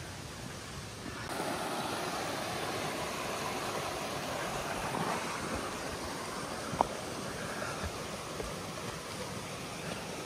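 Steady rushing wind noise that sets in sharply about a second in and holds, with one sharp click near the middle.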